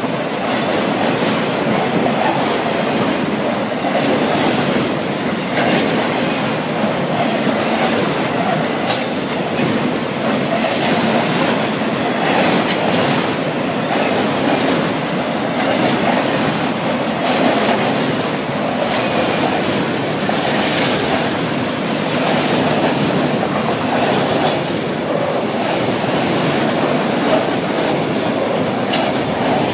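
A freight train of autorack cars rolling past at speed: a steady rumble of steel wheels on rail, broken by irregular sharp clicks.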